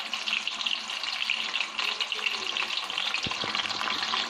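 Battered fish pieces deep-frying in hot oil in a kadai: a steady crackling sizzle. A single soft knock comes about three seconds in.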